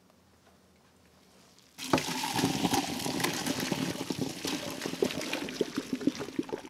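Hot water and parboiled cauliflower and broccoli florets poured from a pot into a plastic colander in a stainless steel sink: a rush of splashing, draining water with the florets tumbling and knocking. It starts suddenly about two seconds in and stops near the end.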